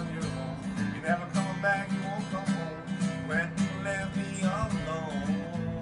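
Acoustic guitar strummed in a steady rhythm, with a wavering melody line above it, in an instrumental passage between sung verses.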